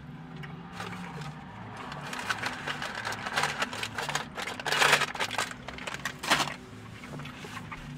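Crinkling and rustling of fast-food packaging being handled, in short irregular bursts, loudest about five seconds in.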